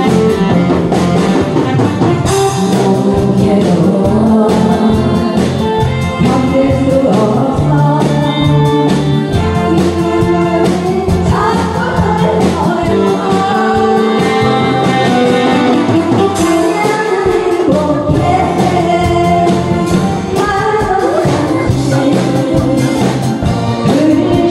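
A woman singing a Korean popular song into a handheld microphone over amplified instrumental accompaniment with a steady beat.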